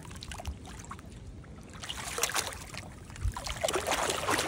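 Creek water sloshing and splashing, louder from about two seconds in and building toward the end, over a low rumble of wind on the microphone.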